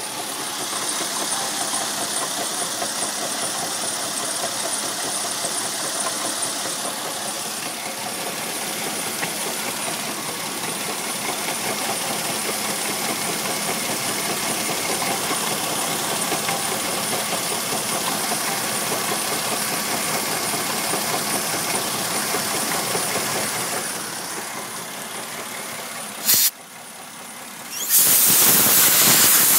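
1999 Mercedes ML320's 3.2-litre V6 idling steadily, with a worn water pump whose shaft has play. Near the end the running noise drops away, a short sharp noise comes, and then a loud steady hiss begins.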